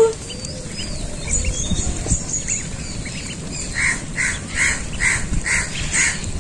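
A brood of ducklings calling as they feed from a bowl, with scattered high peeps and then a steady run of calls, about three a second, from about four seconds in.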